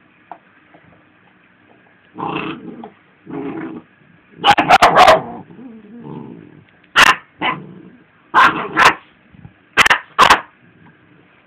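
Dogs growling, then a run of sharp barks and snaps from about four seconds in: a mother dog guarding her chew bar from her pups.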